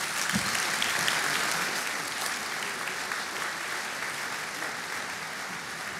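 Audience applauding: dense, steady clapping that swells in the first second, then slowly eases.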